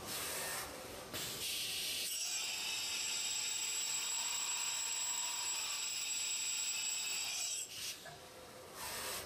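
Tongtai GT-630 five-axis machining center changing tools: short bursts of air and mechanism noise, then a steady air hiss with a thin high whine for about five seconds that cuts off suddenly, and one more short burst near the end.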